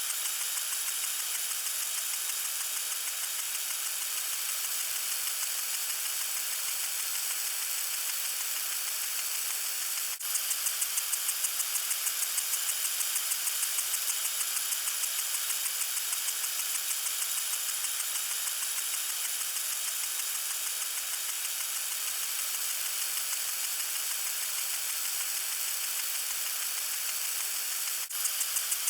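Water sprinkler spraying: a steady hiss of water with a fast, regular pulsing, dipping briefly about ten seconds in and again near the end.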